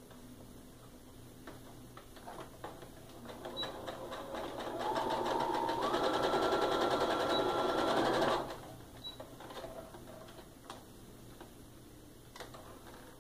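Sewing machine stitching a seam. It makes a few slow stitches, then runs fast, its whine stepping up in pitch twice, and stops abruptly a little after eight seconds in.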